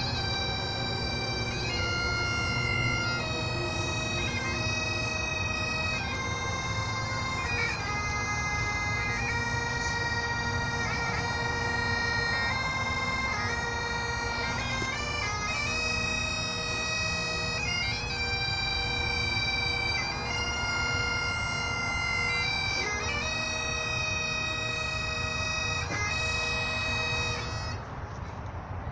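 Bagpipes playing a slow melody of long held notes over a steady drone. The music stops shortly before the end.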